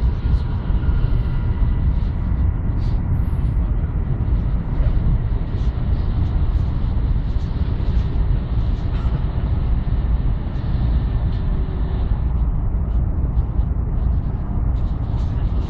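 Inside an NSB Type 74 Stadler FLIRT electric multiple unit running at speed: a steady low rumble of wheels on the rails, with faint steady tones and small scattered clicks over it.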